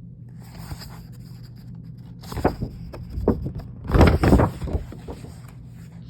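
Rustling and scraping of paper, like picture-book pages being handled and turned, in several bursts with the loudest about four seconds in, over a steady low hum.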